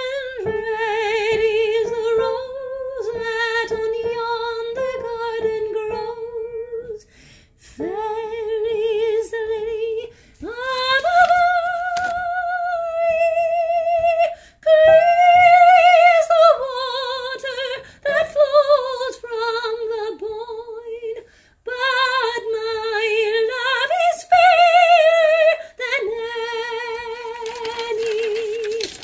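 A solo female soprano voice singing a slow air in long held notes with steady vibrato, sliding up into some notes, the phrases broken by short breaths.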